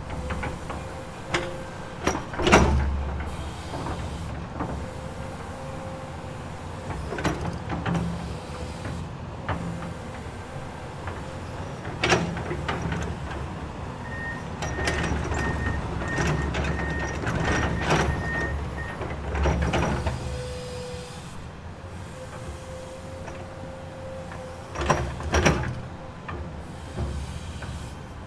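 Komatsu hydraulic excavator at work: the diesel engine runs steadily under a held hydraulic whine, with sharp metal clanks and knocks from the bucket and linkage. In the middle comes a run of short, evenly spaced high beeps.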